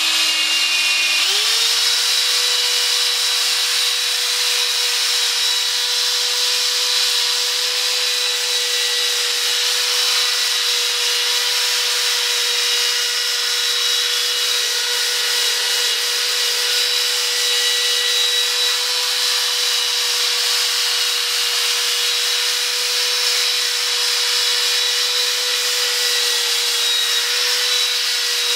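Corded electric drill spinning a P500 sandpaper disc to buff a yellowed plastic headlight lens. The motor picks up speed about a second in, then runs with a steady whine over the hiss of sanding.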